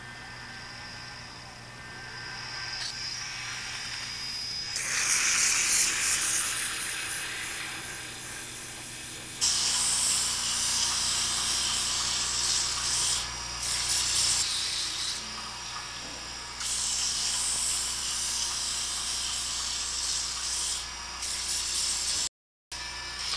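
Carbatec mini wood lathe's motor running with a steady hum while sandpaper is held against the spinning wooden spindle, making a loud hiss in several stretches of a few seconds each. The sound cuts out for a moment near the end.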